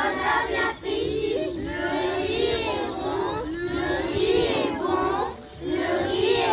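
A group of young children singing a short rhyme together in unison, in French, in phrases with brief breaks between them.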